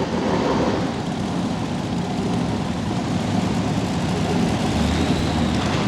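Modified pulling tractor's engine running, a loud, steady heavy drone.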